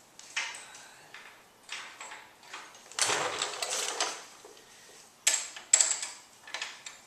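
Hand tools clicking and scraping on metal as a hex key from the stock toolkit turns a BMW F650GS's chain slack adjuster screws, with a longer scrape about three seconds in and a few sharp clicks near the end.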